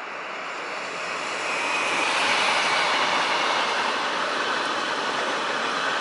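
Freight train of loaded car-transporter wagons rolling past, a steady rush of wheels on rails that swells over the first two seconds and stays loud.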